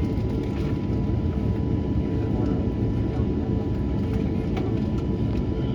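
Steady low rumble of an Airbus A220 cabin on the ground before takeoff, with a constant thin hum over it and a few faint ticks.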